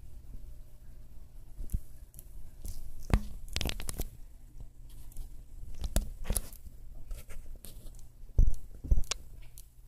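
Handling noise from a smartphone held and shifted in the hand while filming: scraping and rubbing with scattered clicks, then two heavy knocks near the end.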